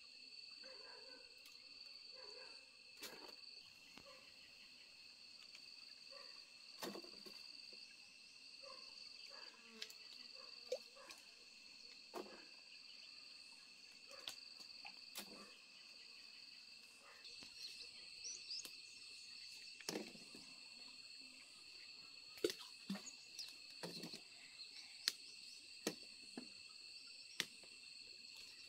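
Insects calling steadily in several high-pitched bands, one of them pulsing in the first half. Over them come scattered light clicks, snaps and rustles of fig-tree branches and leaves being handled while figs are picked, more frequent and louder in the second half.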